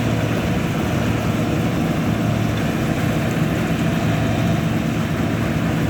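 Combine harvester running steadily while harvesting wheat: a constant low engine drone that does not change.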